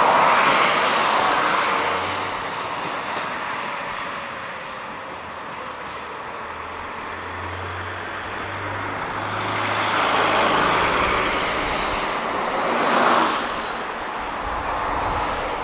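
Ichibata Electric Railway 3000-series electric train (ex-Nankai 21000) running away from the listener, its rolling noise loudest at first and fading over the next few seconds. Later a second swell of vehicle noise rises and falls, peaking about thirteen seconds in.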